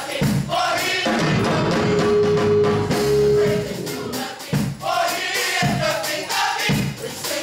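Gospel mass choir singing together with band accompaniment. A long note is held through the middle, and a beat comes in about once a second in the second half.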